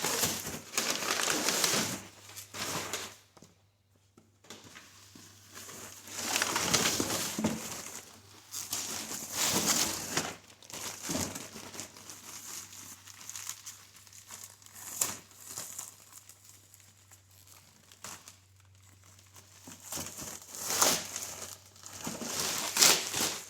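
Packaging wrap crinkling and rustling in irregular bursts as a new motorcycle windscreen is unwrapped by hand.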